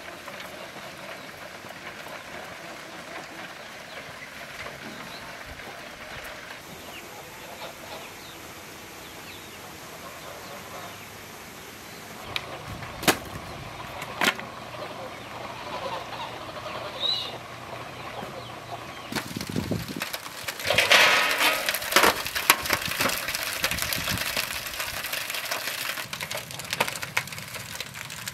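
Steam and a wood fire hissing steadily under a foil-wrapped pumpkin on a metal tray, with a few sharp clicks. Near the end comes a louder stretch of rustling and knocks as the hot tray is handled and lifted off the fire.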